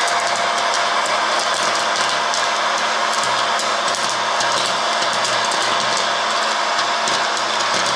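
Mini electric hot-air popcorn machine running: its blower makes a steady hiss, with frequent sharp pops as kernels burst.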